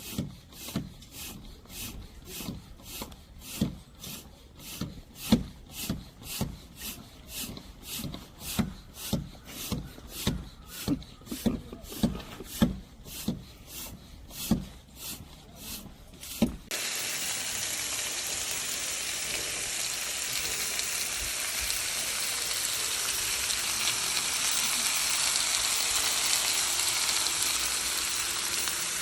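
Rhythmic rubbing strokes on wood, about two a second, which stop abruptly about two-thirds of the way through. A steady sizzle of food frying follows.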